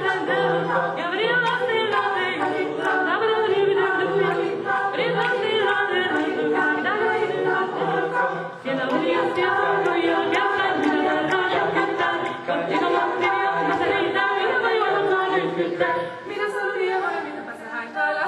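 Mixed choir of men and women singing a cappella, several parts in harmony, with no instruments. The singing grows uneven and quieter in the last couple of seconds.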